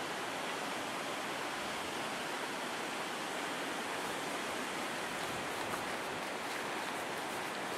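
A steady, even rushing noise that does not rise or fall, with no distinct events in it.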